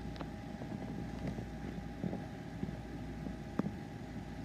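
Steady low background hum of a quiet room, with a faint steady tone and a few faint clicks, the sharpest about three and a half seconds in.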